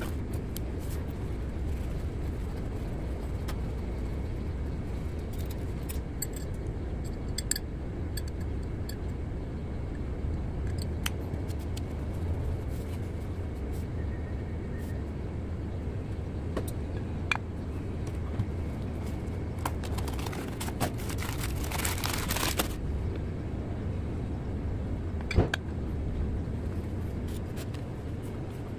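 Light metallic clicks and clinks of a diesel piston and connecting rod being handled on a workbench, over a steady low background rumble. There are a couple of seconds of scraping around twenty seconds in and a sharper metal knock a few seconds later.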